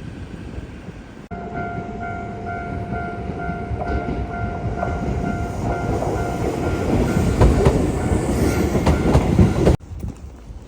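Train running: a steady whine over a rumble and clatter that grow louder, cutting off suddenly near the end.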